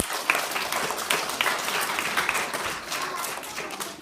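A group applauding, many hands clapping together, with a few voices mixed in; the clapping dies away near the end.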